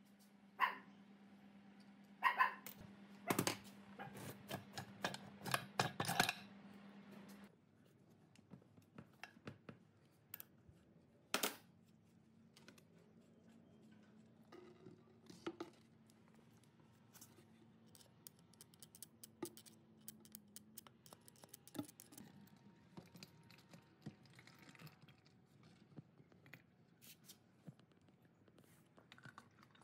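Metal clinks and knocks of an old air compressor being taken apart by hand: a burst of rapid clatter in the first few seconds as the finned cast cylinder is worked loose on the crankcase, then scattered light clicks while the crankcase drain plug is taken out.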